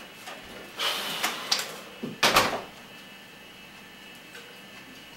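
Door sounds in a small kitchen: clicks and rustling, then a short loud thump about two seconds in as the door is pushed shut, followed by quiet room tone.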